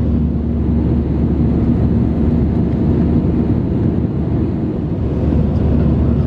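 Steady cabin drone of an Airbus A320-200 in flight: a constant low rumble of engines and airflow with a faint steady hum, unchanging in loudness.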